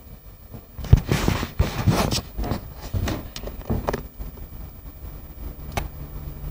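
Phone handling noise: irregular knocks and rustling as the phone is moved and bumped about, the sharpest knock about a second in.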